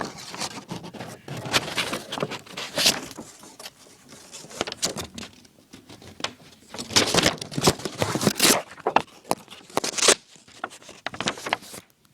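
Paper being cut with a pocket knife: a series of irregular rustling, scraping strokes.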